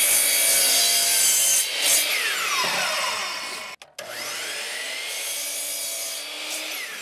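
Compound miter saw cutting dog-ear corners off two stacked cedar fence pickets, done twice. Each cut is the motor's whine with the blade ripping through the wood, then a falling whine as the blade winds down. The second cut starts about four seconds in and is quieter.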